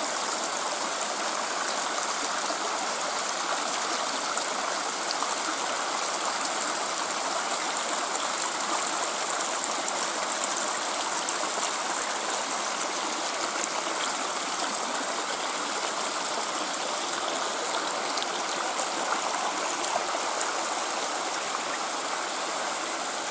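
Small waterfalls of a mountain brook, water pouring steadily over rocks with an even rushing sound.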